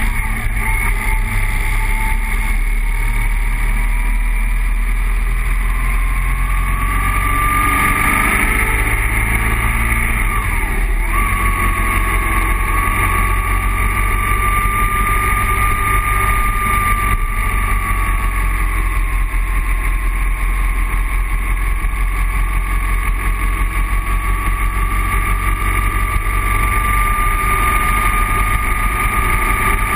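BMW boxer-twin motorcycle engine running at road speed, heard from a bike-mounted camera with heavy wind rush. The engine note rises and falls gently with the throttle, with a short dip and jump about eleven seconds in.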